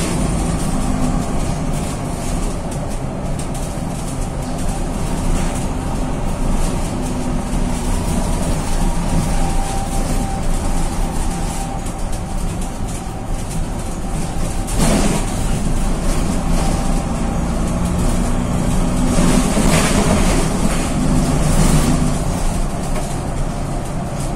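Diesel engine of a VW 26.330 OTA city bus heard from inside the cabin while the bus drives, a continuous drone whose pitch shifts as it goes. There are a few short noisy bursts, the clearest about fifteen seconds in and more around twenty seconds in.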